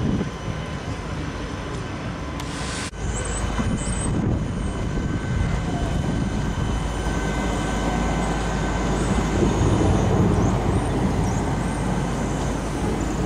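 Street noise around trams for the first three seconds. Then a Siemens Combino tram comes round a curve and passes close by, rolling over the rails with a steady low rumble and hum that grows loudest about ten seconds in.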